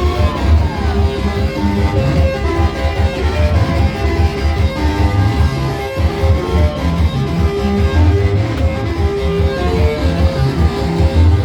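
Instrumental music led by guitars over a strong pulsing bass, with held notes in the mid range.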